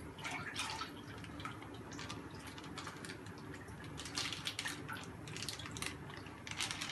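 Milk pouring and splashing from a plastic milk pouch into a pan, then dripping as the last of it is squeezed out, with the plastic pouch crinkling in the hand. A steady low hum lies underneath.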